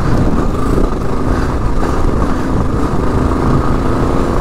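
Kawasaki KLR 650's single-cylinder engine, fitted with a Lexx slip-on exhaust, running steadily as the dual-sport bike is ridden along a dirt trail.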